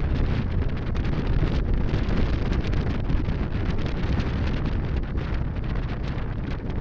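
Wind buffeting the microphone of a handlebar-mounted camera on a cruiser motorcycle at road speed, over a low, steady rumble from the motorcycle's engine.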